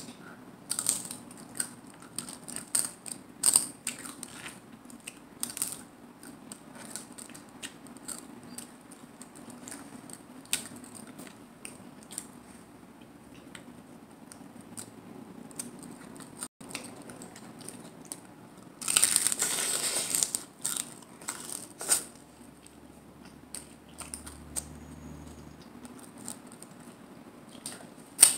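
Close-up biting and chewing of a crisp hard corn taco shell: scattered sharp crackles, with one longer burst of crunching a little under two-thirds of the way through.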